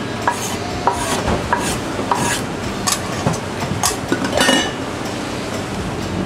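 Silicone spatula scraping food off a wooden cutting board into a metal cooking pot and knocking against the pot rim, a run of short clicks and scrapes that dies away about four and a half seconds in. A steady low rumble runs underneath.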